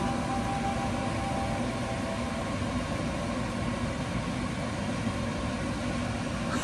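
Steady whirring hum of a kitchen appliance running, with no sudden sounds.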